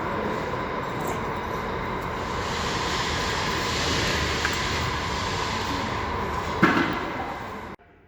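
Steady rushing noise from work in a truck repair shop, with one sharp knock near the end; the sound cuts off abruptly just before the end.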